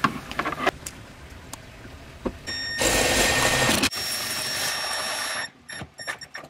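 Milwaukee M12 cordless driver running in two bursts of about a second each, driving fasteners into the CR-V's rear side trim panel. A few small clicks and handling knocks come in the first second.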